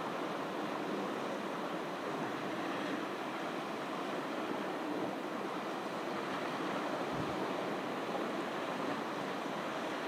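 Ocean surf washing on the beach: a steady, even hiss of waves with no single breaker standing out.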